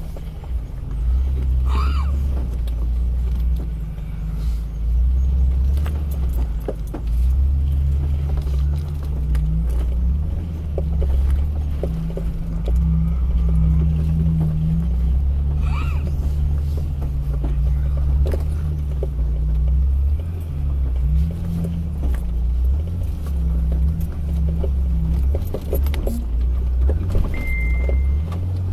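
A Jeep's engine and drivetrain rumbling low from inside the cab as it crawls along a rough dirt trail, the rumble rising and falling with the throttle. Scattered rattles and knocks come from loose things in the cab over the bumps.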